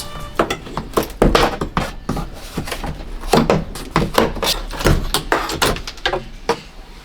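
Irregular knocks, taps and clicks of hand work on wood in a small room, many in quick succession, as camper paneling is worked on.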